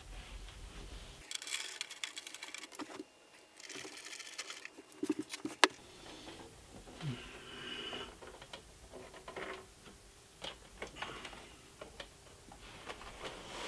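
Torx T10 screws being taken out of the oscilloscope's underside: quick rattling clicks of the driver and screws, one sharp click a little over halfway, then scattered light knocks as the metal chassis and plastic panel are handled.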